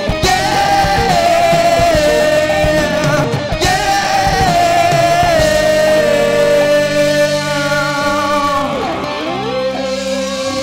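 Live rock band playing the close of a song: electric guitars, bass and drums with long held notes. About nine seconds in, one note slides down and back up.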